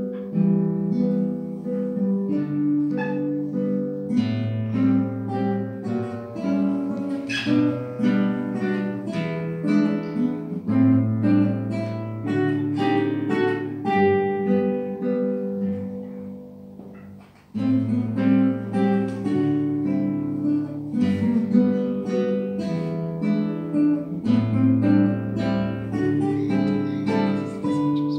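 Two classical guitars playing a duet, a plucked melody over a bass line. About two-thirds of the way through, the music dies away into a brief pause, then starts again.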